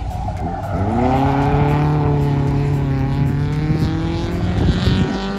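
Rally car's engine accelerating hard, its note climbing about a second in and then held high through the run, dipping briefly midway and falling away as it backs off near the end.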